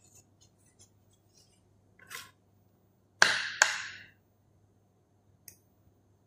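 Kitchen cookware and utensils being handled: two sharp clatters about half a second apart, a little after three seconds in, among faint ticks and a soft scrape.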